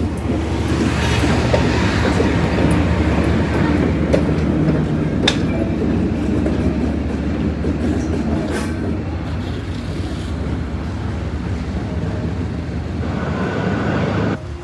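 D19E diesel-electric locomotive running along the track, its engine drone steady and low, with a few sharp wheel clicks over the rail joints. The sound cuts off abruptly near the end.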